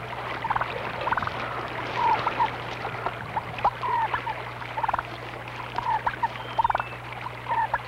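Wild turkey calling: short clucking notes repeated at irregular intervals, with a few quick rattling bursts among them.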